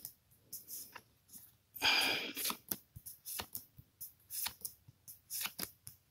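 Pokémon trading cards flipped through by hand, each card slid off the stack with short flicks and scrapes of card against card, and a longer, louder rustle about two seconds in.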